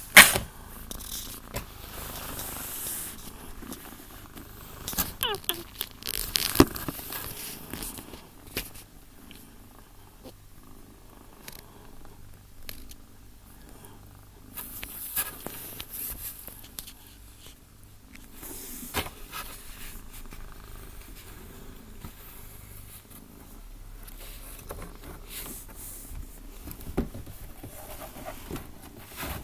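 Domestic cat purring steadily, with scattered sharp clicks and rustles, the loudest right at the start and about six and a half seconds in.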